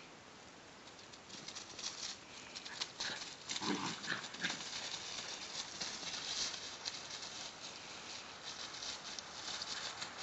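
Dry fallen leaves crunching and rustling under standard poodle puppies running and wrestling in play. The crackling starts about a second in and becomes busy and continuous, with a brief, lower-pitched sound about four seconds in.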